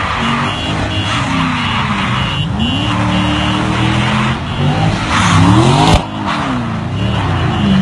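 Car engines revving up and down while cars drift, their tyres skidding and squealing on the asphalt. The revving is loudest about five seconds in and drops off suddenly about a second later.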